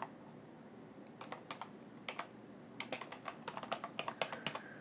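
Typing on a computer keyboard: keystrokes in quick runs with short pauses, the longest and densest run in the second half.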